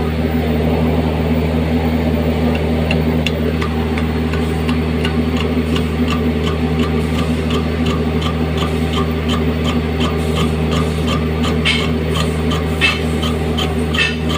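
Metal lathe running with a steady hum, an H10 carbide-tipped tool turning a hardened steel workpiece. A light tick repeats about three times a second from a few seconds in.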